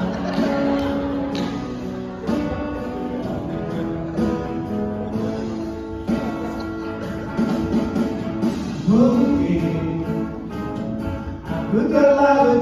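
A group of men singing into microphones as an ensemble, several voices in harmony with sliding notes, over a steady rhythmic accompaniment.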